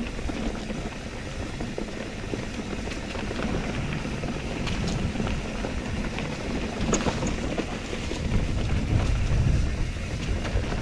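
Titanium mountain bike rolling along dirt singletrack strewn with dry leaves: steady tyre rumble and rattle with scattered sharp clicks, and wind buffeting the microphone.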